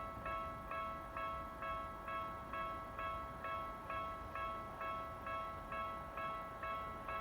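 Japanese railway level crossing's electronic alarm ringing, a bell-like ding repeated steadily a little over twice a second, warning that a train is approaching.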